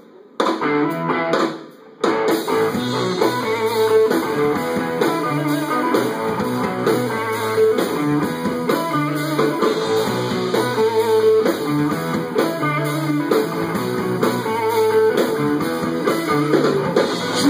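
Rock band playing live without vocals, guitar to the fore. Two brief drops in the first two seconds, then steady playing.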